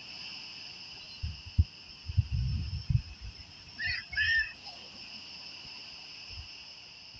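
Steady shrill chorus of insects, an unbroken high two-toned drone. Low rumbling thumps come and go, loudest between about one and three seconds in, and a brief high call sounds about four seconds in.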